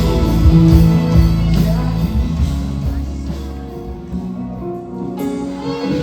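Rock music with guitar and singing; it thins out and drops in level about halfway through, then the guitar comes back in fuller near the end.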